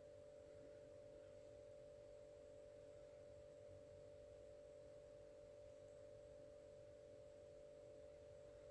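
Near silence: a faint, steady electrical tone from the recording setup over a low background hiss.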